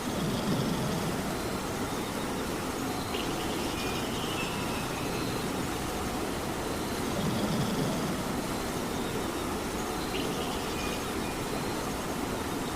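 Steady rain hiss with a cat snoring underneath: slow, low snoring breaths swelling about half a second in and again about seven seconds later.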